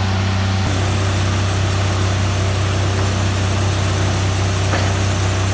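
The engine of Wood-Mizer sawmill equipment running steadily with a constant low hum. The sound shifts slightly just under a second in.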